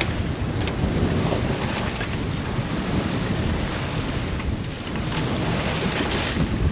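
Wind buffeting the microphone on a sailboat under sail, with water rushing and splashing along the hull, a louder wash about six seconds in.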